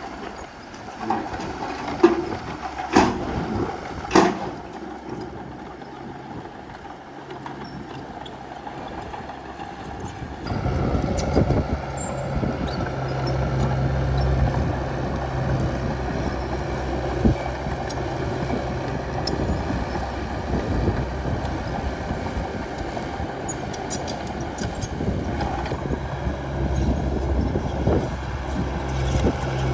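Bulldozer's diesel engine running, with a few sharp metallic knocks in the first few seconds. About a third of the way in the engine grows louder and steadier as it takes on load.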